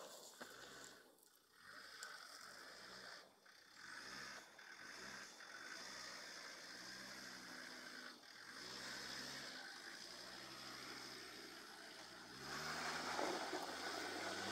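Land Rover Discovery's engine working at low revs as the 4x4 crawls over rock ledges, its note rising and falling with the throttle. About two seconds from the end it gets louder: the revs climb and a tyre spins and scrabbles on rock and sand.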